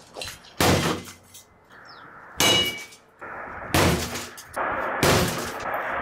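Pickaxe striking the sheet-metal casing of a Bosch washing machine: four hard clanging blows about a second and a half apart, each ringing briefly.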